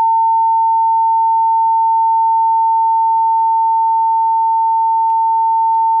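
Steady, unbroken sine-wave tone just under 1 kHz, played through a small speaker from a function generator.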